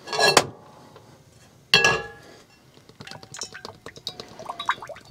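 A small glass jar and its lid handled on a kitchen counter: a brief knock at the start, a sharp glassy clink about two seconds in, then a run of light clicks and ticks.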